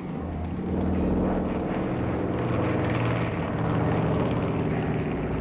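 Propeller aircraft engine droning steadily, swelling about a second in and then holding.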